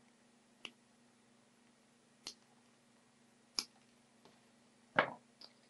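Side cutters snipping off soldered capacitor leads on a circuit board: three sharp snips roughly a second and a half apart, then a heavier knock about five seconds in, followed by a light click.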